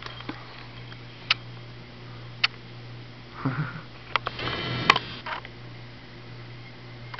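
Camcorder handling and operating noise over a steady low hum: scattered clicks, a sniff about three and a half seconds in, then a brief buzzing whir from the zoom motor with a sharp click partway through.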